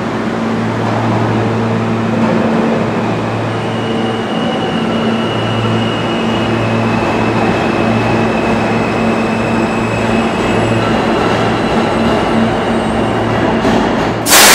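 R160 subway train pulling into the station and slowing to a stop, with a steady low hum and a brief higher whine about four seconds in. Right at the end, as it stops, a sudden loud burst of air hiss from the brakes.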